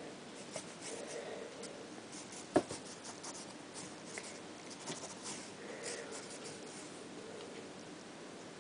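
Soft scratching and rustling of a feather toy being swept across a tiled floor, with kittens' paws patting and scrabbling at it, and one sharp tap about two and a half seconds in.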